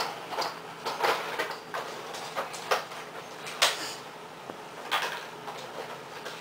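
Clear plastic toy packaging rustling and crinkling as it is handled, with irregular sharp clicks and knocks; the loudest comes about three and a half seconds in, another about five seconds in.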